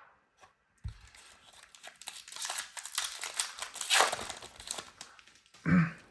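Foil booster pack wrapper crinkling as it is torn open and handled, loudest about four seconds in.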